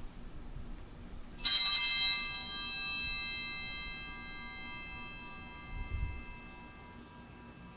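Altar bells rung at the consecration: a bright jangle of several ringing tones about a second and a half in, fading away slowly over several seconds. A soft low thump comes about six seconds in.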